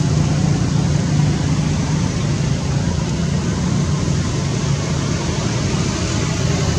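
Steady low drone of a running engine or motor, with an even hiss over it and no break or change.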